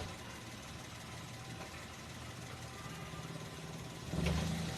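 Car engine idling steadily, with a short swell in engine sound about four seconds in.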